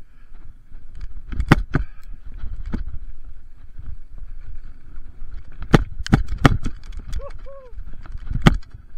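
Mountain bike descending a bumpy dirt trail: steady rumble of tyres on dirt and wind rush, with sharp knocks and rattles from the bike over bumps, the loudest about a second and a half in, around six seconds in and near the end. A pair of short rising-and-falling tones sounds about seven seconds in.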